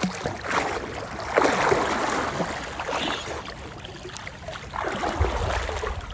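River water splashing and sloshing in uneven surges as a man swims breaststroke toward another person standing chest-deep and grabs him from behind.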